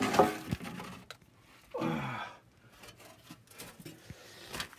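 A man's wordless breathy exhalations, with a falling voiced sigh about two seconds in, and a few light knocks of something being handled.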